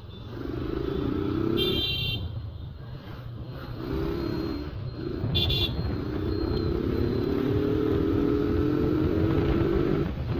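Motorcycle engine pulling hard in traffic, its pitch rising as it speeds up, most steadily over the last few seconds. Two short high horn toots sound, one at about a second and a half and one at about five seconds.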